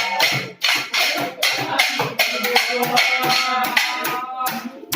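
Music with a fast, even percussive beat of about four strokes a second, a pitched melody coming in about halfway through.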